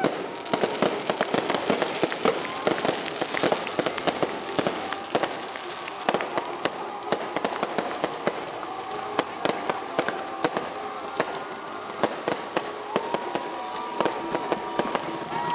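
Fireworks display going off: a rapid, continuous string of pops, bangs and crackles, with a few held tones joining in during the second half.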